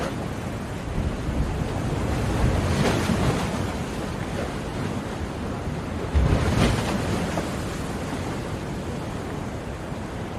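Ocean waves breaking on a shore: a continuous rushing surf with two louder waves, about three seconds in and again around six seconds in.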